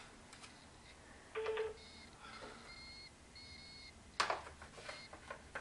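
Mobile phone beeping faintly: a series of short, steady electronic beeps over about two seconds. There is a brief louder sound just before the beeps and a sharp click just after them.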